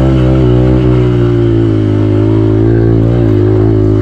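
Dirt bike engine running steadily under throttle while riding, its pitch wavering a little up and down.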